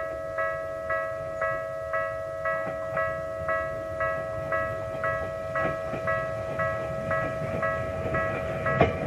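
Japanese railway level-crossing warning bell ringing about twice a second. Under it, the rumble of an approaching Bessho Line electric train grows louder through the second half, with a sharp knock near the end.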